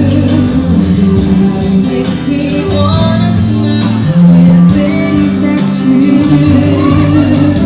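Amplified pop song with a singer over instrumental backing, including guitar.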